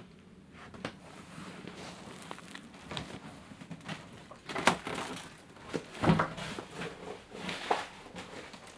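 Footsteps and handling noise on a debris-strewn floor: scattered crunches and knocks, with a few louder thumps a little past the middle.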